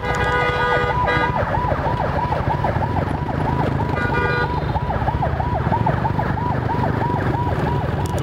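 Electronic siren in a fast yelp, its pitch sweeping up and down about four times a second, over a steady low road and wind rumble. A horn sounds for about a second near the start and briefly again about halfway.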